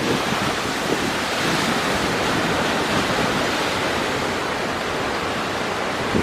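Rough sea surf breaking in a steady wash, driven by strong winter wind, with a gust buffeting the microphone right at the end.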